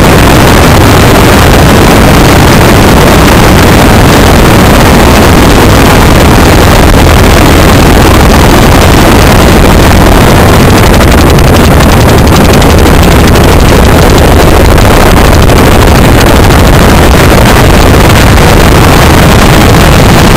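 Legal Eagle ultralight's engine and propeller running close to the microphone while the plane taxis. The sound is steady and so loud that the recording is distorted.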